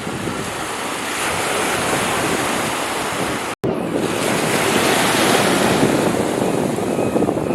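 Waves washing in steadily with wind buffeting the microphone; the sound cuts out for an instant about halfway through.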